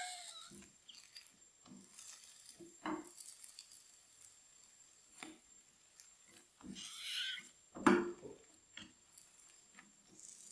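Plastic slotted spatula scraping and tapping against a nonstick frying pan as it presses and shifts a flour tortilla, in scattered soft knocks and scrapes, with a sharper knock about eight seconds in.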